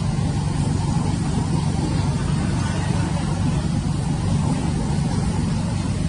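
A steady, low mechanical hum, like an engine running, unchanging throughout.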